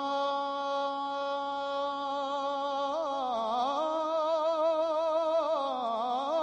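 A man singing a naat unaccompanied, holding one long steady vowel, then about halfway through bending it into quick wavering turns.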